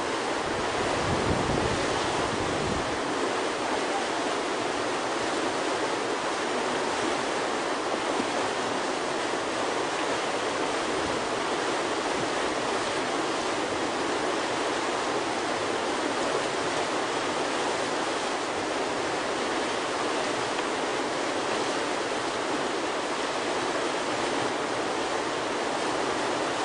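Steady rushing of whitewater pouring through a river hole, with a low rumble in the first few seconds.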